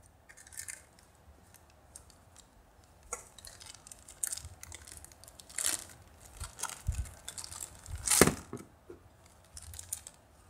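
A thin clear plastic bag crinkling and being torn open by hand, among light clicks of the hard plastic gashapon capsule being handled. The rustles come in uneven bursts, and the loudest, sharpest one is about eight seconds in.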